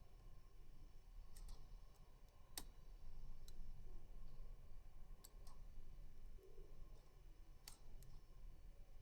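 Faint, irregular small metallic clicks, about six spread over the stretch, from a rotor pick being worked inside a six-pin FAC pin-tumbler lock.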